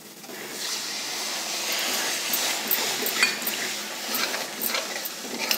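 Slotted steel spatula stirring water into a fried masala paste in a steel kadai, scraping and clicking against the pan now and then over a steady hiss.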